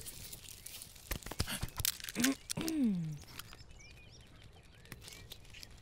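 Animated-film sound effects: a quick run of small sharp ticks and taps, then a short pitched vocal sound that rises briefly and falls away over about a second, followed by faint bird chirps.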